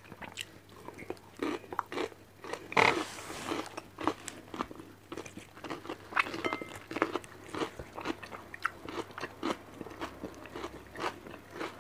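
Close-miked chewing and crunching of raw vegetables: many short crisp crunches as the mouthful is chewed, with one louder crunch about three seconds in.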